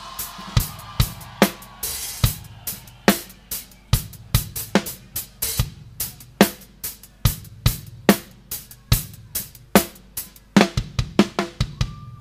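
Live drum kit playing a steady beat of bass drum and snare strikes with cymbals, breaking into a quicker fill near the end.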